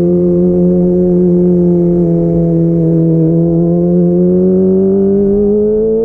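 Kawasaki ZX-25R's 250 cc inline-four running loudly through an aftermarket DX Generation Pro Race exhaust with the dB killer out. It holds a steady high-revving note, and the pitch rises slowly in the last couple of seconds.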